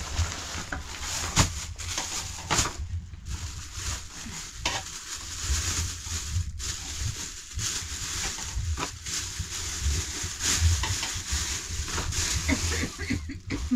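A plastic bag crinkling as flatbread is pulled out of it, and a spoon scraping rice out of a metal pot onto a plate, with scattered clicks and a steady low rumble underneath.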